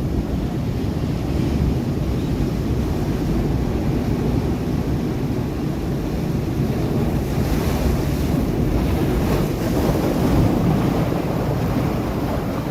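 Sea waves breaking on rocks: a steady wash of surf, with a bigger wave surging in from about seven seconds in. Wind buffets the microphone.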